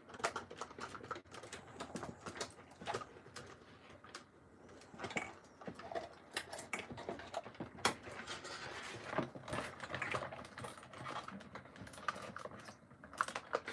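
Irregular clicks, taps and rustles of a plastic action figure and its cardboard display box being handled with gloved hands while twist-ties are threaded through the box.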